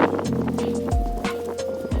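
Background music with a steady beat: a low bass drum about once a second under held melody notes.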